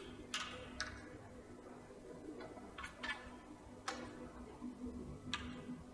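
A few sharp, light clicks at irregular intervals, about five in six seconds, from around the billiard table, over a faint steady hum.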